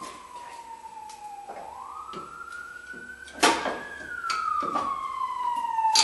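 A siren wailing, its pitch sliding slowly down and then sweeping back up, about one cycle every five seconds. A sharp metal clank comes about three and a half seconds in, with a few lighter knocks.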